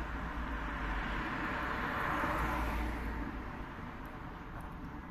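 Car passing on the street: a steady rush of traffic noise that swells about two seconds in and fades away toward the end.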